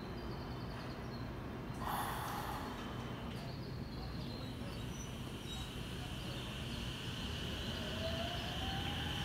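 JR West 227 series electric train standing at the platform with a steady low hum, a short hiss about two seconds in and a steady high-pitched tone from about halfway. Near the end a faint rising whine comes in as the inverter-driven traction motors start the train away.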